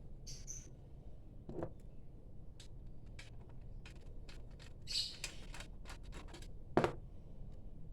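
Scattered small clicks and taps of hands working on the recorder and its hard disk. Two louder knocks come about one and a half seconds in and near the end, the second one the loudest, with a brief scratchy rustle about five seconds in.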